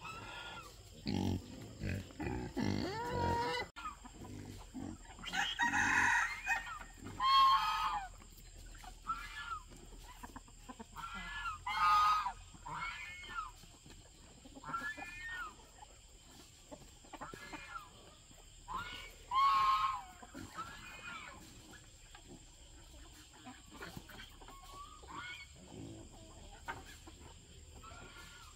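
Farmyard chickens clucking and calling in many short calls, with a few louder, longer calls. Pigs grunt low during the first few seconds.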